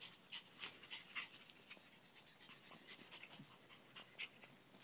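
Faint panting of a small dog, in short, irregular breaths.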